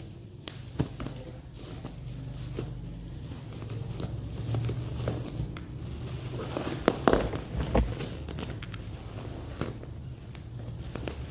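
Scissors snipping through black bubble-wrap packaging while the plastic crinkles and rustles as it is pulled apart, with many small clicks and snaps. The crackling is loudest and busiest about seven seconds in.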